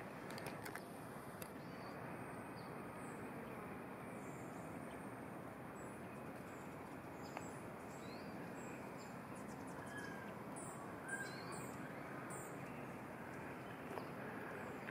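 Steady outdoor background hum, with a small bird giving a quick run of about five high chirps roughly two-thirds of the way through.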